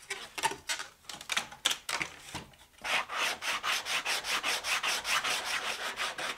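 Hand sanding the edge of a thin plywood template with a small abrasive block: from about three seconds in, steady back-and-forth rasping strokes about four a second. Before that, a few irregular scrapes and knocks as the thin plywood pieces are handled.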